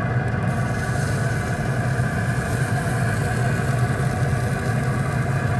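Pit Boss Pro Series 1100 pellet grill running with its lid open, giving a steady, even mechanical hum from its fan.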